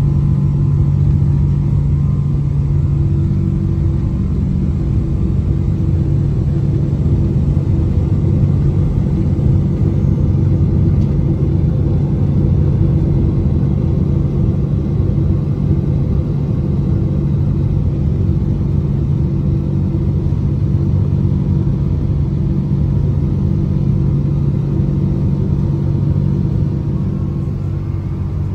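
Rolls-Royce Trent 892 turbofan engines of a Boeing 777-200ER running at takeoff thrust, heard inside the cabin over the wing: a loud, steady deep drone through the end of the takeoff roll, liftoff and initial climb, easing slightly near the end.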